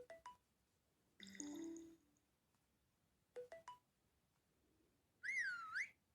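Huawei P8 notification tones previewed one after another through the phone's small speaker, heard faintly: a short chime about a second in, a quick run of three rising beeps, then near the end a brief warbling flute-like whistle.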